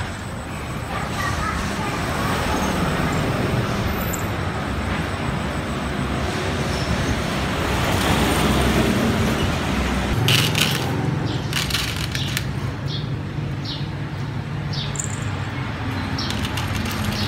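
Steady outdoor background noise with traffic and faint voices, broken by a few short clicks about ten seconds in.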